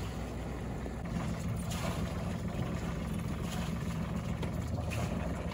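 A sailboat's engine running steadily as the boat motors out of its berth; its low note steps up and gets slightly louder about a second in, as it picks up a little speed.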